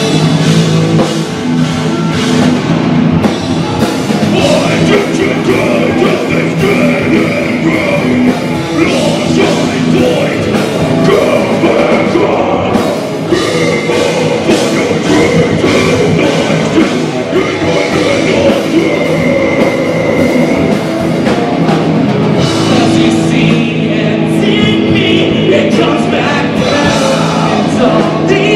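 Live rock band playing loud, with electric guitars, drum kit and vocals.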